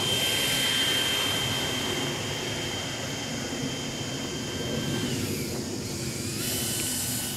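Electric ducted-fan whine of a Freewing T-45 RC jet under power, a steady high-pitched whine over a rushing hiss. About five seconds in the pitch sags, then climbs back up about a second and a half later.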